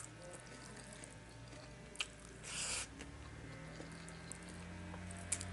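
Fingers mixing and squishing cooked rice and boiled egg in a metal bowl, soft and faint, with a few sharp clicks (at the start, about two seconds in and near the end) and a short hiss around the middle.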